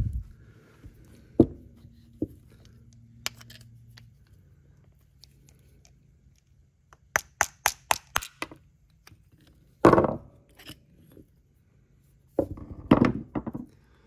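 Rusted, seized Briggs & Stratton recoil-starter ratchet assembly being knocked against a workbench to free and split it: scattered knocks, then a quick run of light taps, a heavier knock about ten seconds in and a last cluster of knocks. Water and corrosion have seized it.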